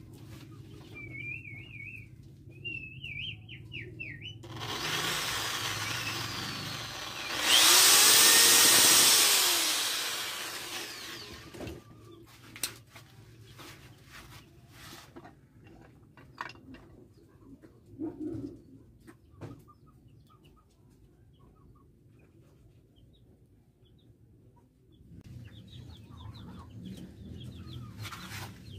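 Hand work at a bench vise: scattered taps and clicks of tools on metal, then a cordless power drill starting up and running into a workpiece clamped in the vise near the end. A loud rushing noise swells for about four seconds in the first half, and birds chirp in the first few seconds.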